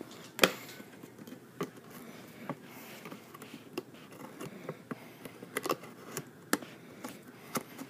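Cardboard box being handled by hand: irregular taps, knocks and rustles as its flaps are touched and folded. The sharpest knock comes about half a second in.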